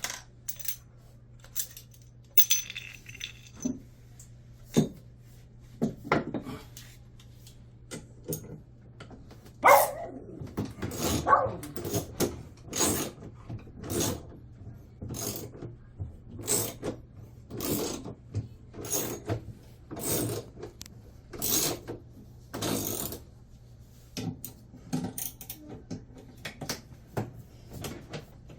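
Metal striking and clinking on metal, a long series of sharp taps at a steady pace of about one every half second or so with a louder hit about ten seconds in, from hand tools working on a drum washing machine's drum and bearing during a bearing replacement. A faint steady low hum runs underneath.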